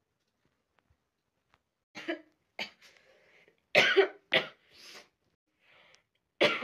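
A woman coughing into her hand: about five short coughs in twos, starting about two seconds in, with breaths between. The cough comes from a throat irritated by chili, as she puts it, from eating too much spicy food.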